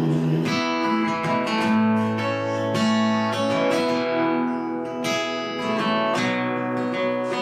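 Acoustic guitar strumming chords in an instrumental gap between sung lines of a country song.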